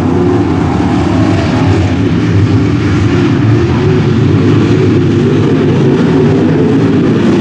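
Several dirt late model race cars' V8 engines running loud and steady at speed, a dense mix of engine notes that waver as the cars circle the track.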